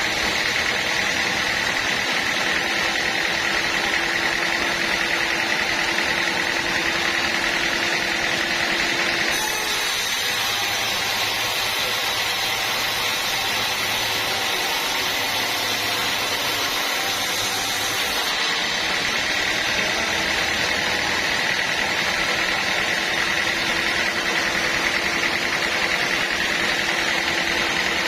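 Band sawmill running steadily with a high whine, most likely sawing through a teak log. The sound changes abruptly about a third of the way through and returns to the whine about two thirds through.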